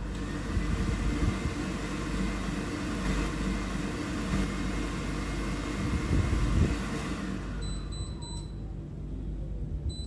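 The blower fan of an RV tankless water heater runs steadily while the burner fails to light. The hiss fades out about three quarters of the way through, and the controller then beeps twice as it raises an E5 fault, the sign of a failed ignition that here points to a faulty air pressure switch.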